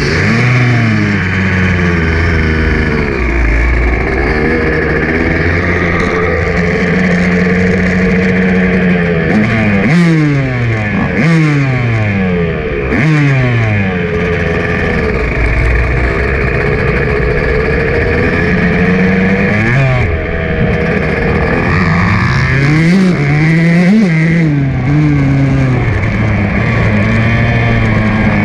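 Motocross dirt bike engine, heard close up while riding, revving up and dropping back again and again as the throttle opens and closes through the gears. A run of quick rises and falls in pitch comes about ten seconds in, and another near the end.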